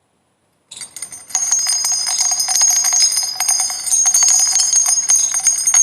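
Jingle bell sound effect: a cluster of small bells shaken continuously in a dense, bright jingle. It starts about a second in, grows fuller, and cuts off abruptly near the end.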